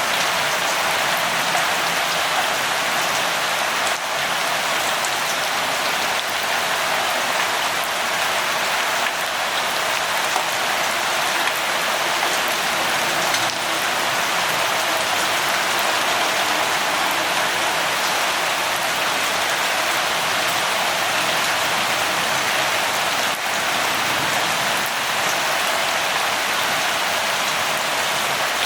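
Steady rainfall, an even, unbroken hiss with no thunder.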